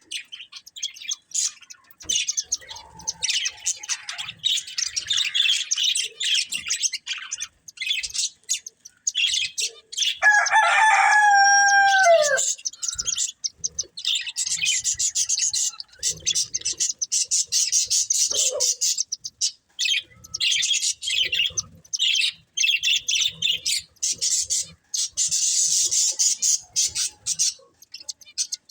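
Budgerigars chattering and chirping in rapid, high twittering. About ten seconds in, a louder, lower call lasts about two seconds, holding steady and then falling in pitch at the end.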